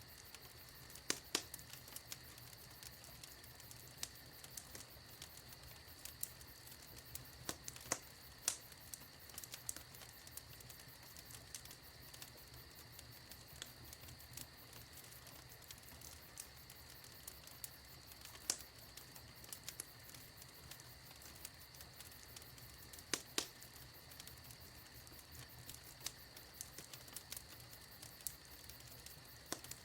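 Wood fire in a fireplace crackling: irregular sharp pops and snaps, a few louder than the rest, over a faint steady hiss.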